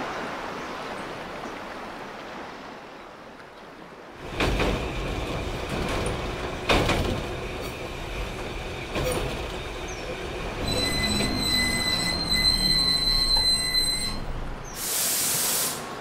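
Electric commuter train pulling into a station. A low rumble starts suddenly about four seconds in, with a few heavy clacks over the rail joints. High brake squeal follows from about eleven to fourteen seconds, and a short loud hiss comes near the end as it stops.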